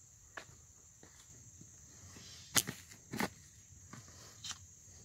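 Scattered footsteps and sharp knocks, the loudest two near the middle, over a steady high-pitched hum.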